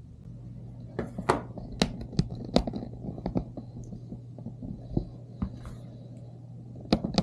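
Packing being handled and pulled apart: irregular knocks, clicks and scrapes of cardboard and styrofoam around a 3D printer, over a steady low hum.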